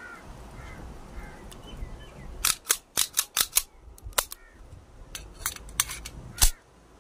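Sharp metallic clicks and clacks from a TT 30 bore pistol being handled as it is put back together: about a dozen in an uneven cluster starting about two and a half seconds in, the loudest one near the end.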